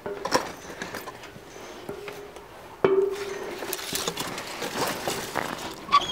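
Footsteps and irregular knocks of someone climbing up to an upper floor, with a squeaky creak lasting about a second near the middle.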